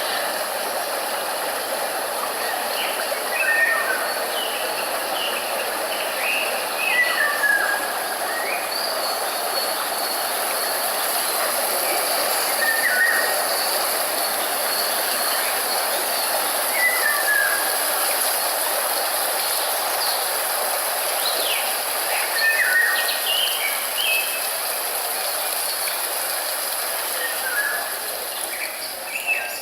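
Steady white-noise hiss, with short bird chirps every few seconds over it.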